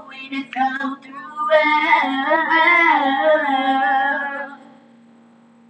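Teenage girls singing without words spoken, holding one long note that bends up and down, then breaking off about a second before the end, leaving only a steady low hum.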